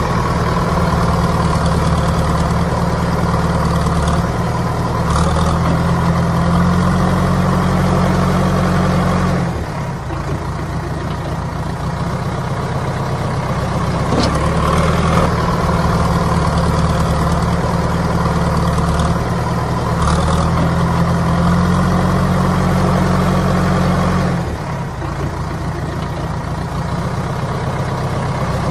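Heavy diesel engine running steadily at low revs, dubbed on as an engine sound effect. It drops slightly in loudness twice, about a third of the way in and again near the end.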